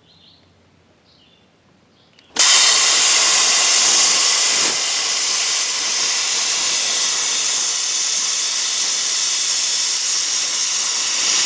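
Hypertherm Powermax 1000 air-plasma torch cutting through a lathe bed: a loud, steady hiss that starts suddenly about two and a half seconds in and stops abruptly at the end.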